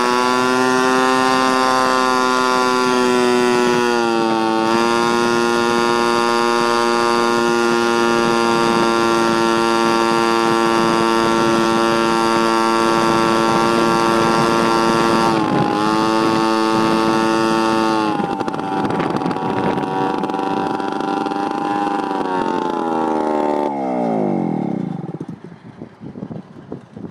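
Honda Urban Express moped engine running at speed with a steady, high buzzing note. About eighteen seconds in the note turns rougher. Near the end the revs fall steeply and the engine sound fades as the moped slows.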